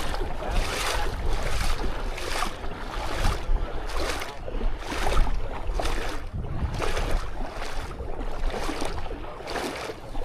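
Wind blowing across the microphone with waves washing below, in repeated gusty swishes about twice a second.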